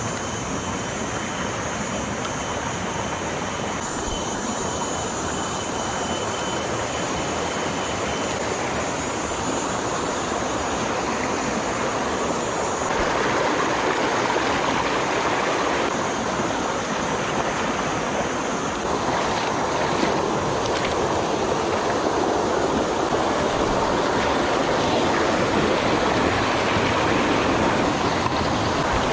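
Shallow rocky stream rushing and splashing over boulders, a steady water rush throughout.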